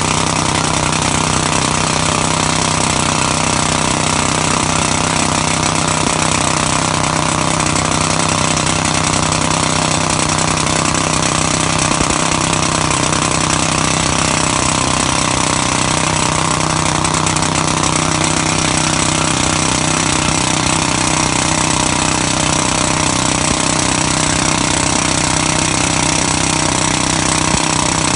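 Jackhammer drill hammering continuously as it drives a long drill rod into an earth slope, boring a hole for a soil nail. It runs loud and steady without a break.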